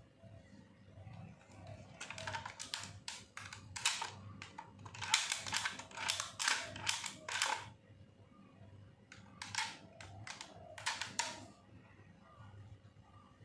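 Hard plastic toy bow clicking and knocking in two runs of quick, uneven clicks as it is handled and turned over. No electronic sound effects.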